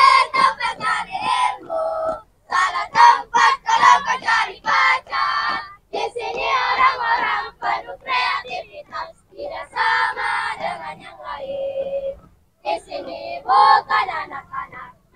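A squad of schoolgirls singing together in unison as they march, in short sung phrases with brief breaks.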